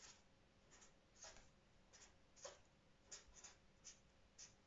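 Faint squeaks and scratches of a felt-tip marker writing on paper, about ten short strokes at uneven intervals.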